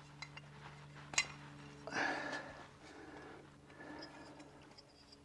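Quiet handling of small parts while wiring a motor: one sharp click about a second in and a few softer clicks, over a steady low hum.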